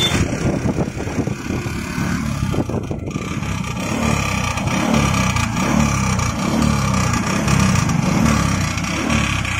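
Bajaj Platina motorcycle under way, its small single-cylinder four-stroke engine running with wind noise over the microphone and an odd abnormal noise. The mechanic places that noise outside the engine, though other mechanics had blamed the engine or the cam chain adjuster.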